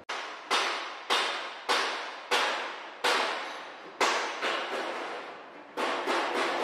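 A run of sharp, ringing hits, about one every half second to second, each dying away before the next; near the end they come quicker and closer together.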